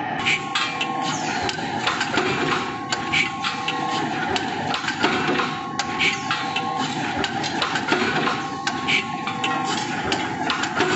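Automatic vertical hot forging press for brass parts running through its cycle about every three seconds: each cycle brings a cluster of sharp metallic clanks, a short hiss and a steady whine of about a second, over a constant machine drone.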